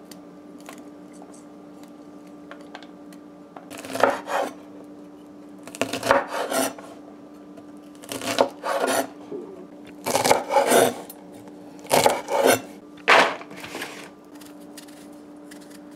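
Kitchen knife chopping through a bundle of yard-long beans (bora) onto a wooden cutting board, in short runs of several quick cuts about every two seconds, starting about four seconds in. A steady low hum sits underneath throughout.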